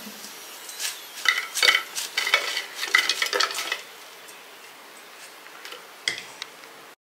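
Crisp fried potato fingers clattering and scraping as they are tipped out of a stainless steel colander onto a serving plate. A quick run of clicks lasts about three seconds, with one more clink near the end, over a faint steady hiss.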